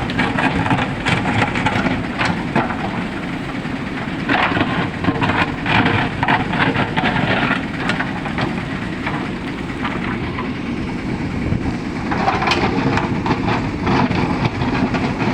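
JCB 3DX backhoe loader's diesel engine running under load while it loads mud, with bursts of clattering about four seconds in and again about twelve seconds in.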